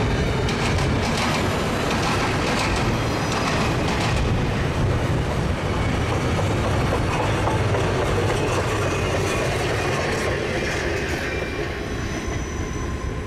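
Intermodal freight train passing close by, its wheels clattering over the rail crossing diamond in sharp clicks, with a faint high wheel squeal near the end as the sound begins to ease.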